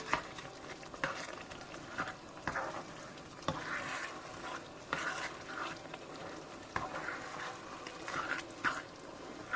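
A spoon stirring and scraping food in a cooking pot, with scattered knocks against the pot every second or so.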